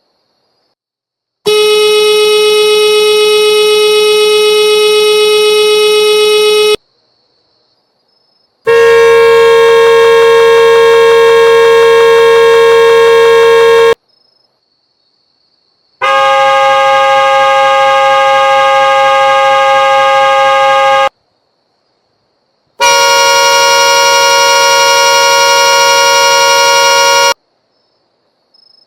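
Four long car horn blasts, each held for about five seconds, with silent gaps between them. Each horn has a slightly different pitch.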